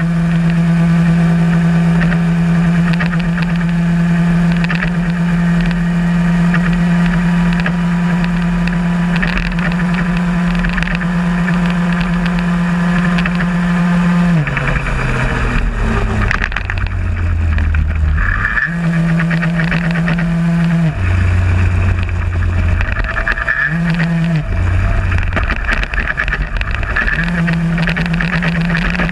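VéloSoleX moped's small two-stroke engine running at full throttle, heard from on board as a steady high buzz. About halfway through the engine speed drops and picks up again several times, then settles back at full speed near the end.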